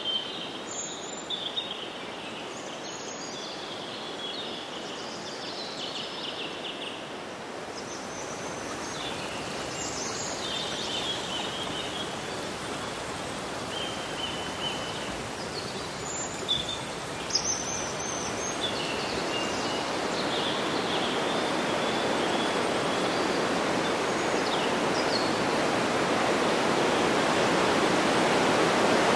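Steady rush of running water that grows gradually louder, with birds chirping over it through the first two-thirds.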